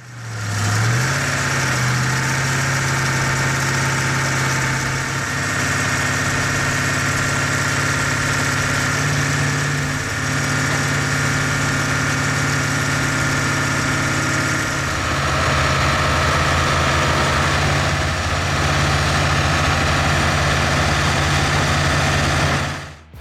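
Diesel engine of an excavator running steadily, its pitch shifting slightly a few times.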